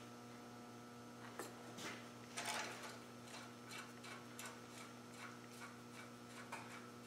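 Faint small clicks and light metal taps of bolts being fitted by hand into a Land Rover Defender's front hub assembly, with a short, slightly louder clatter about two and a half seconds in, over a steady electrical hum.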